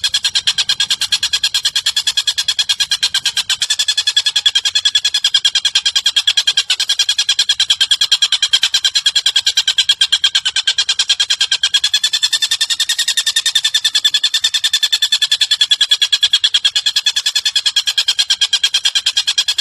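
Recorded birdsong: one long, rapid trill of high notes at a steady pitch, running on without a break.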